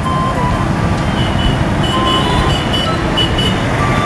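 Busy road traffic: a steady rush of passing motor vehicles, with several short, high beeping tones scattered through it.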